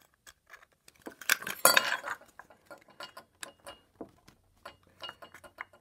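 Pocket knife point clicking and scraping against the rim of an aluminum beer bottle as holes are poked in it: a run of light metallic clicks, with a louder scraping stretch about a second and a half in.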